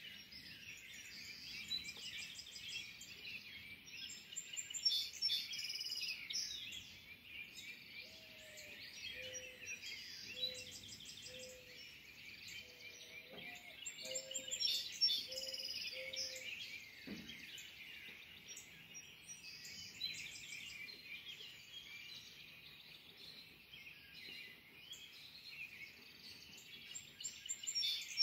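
Dawn chorus: several songbirds singing and chirping over one another, with trills and short repeated phrases. Through the middle, a lower call repeats at an even pace, a little more than once a second.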